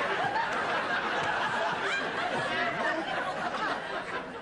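Studio audience laughing, many voices overlapping.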